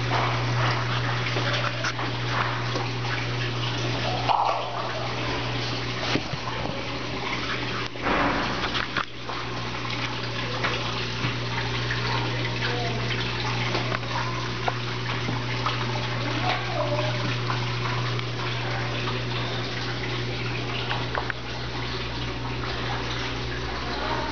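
Brastemp Ative 11 kg top-load washing machine running its wash cycle: water sloshing and splashing in the tub over a steady low motor hum.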